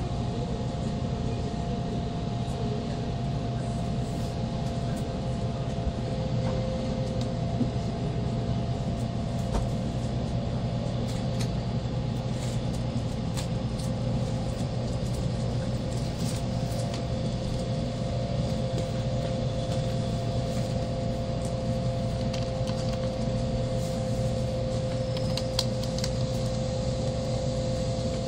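Steady cabin noise of an N700 series Shinkansen car running at reduced speed under a heavy-rain speed restriction: a constant low rumble with two steady whining tones over it, and scattered faint ticks.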